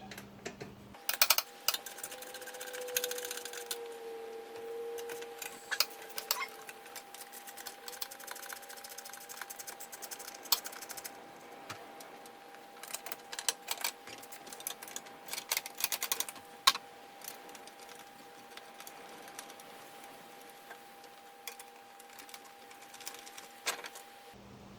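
Runs of rapid clicking and scattered knocks from a ratchet wrench backing out the 10mm fasteners of a truck's under-dash trim panel, with a faint steady tone underneath.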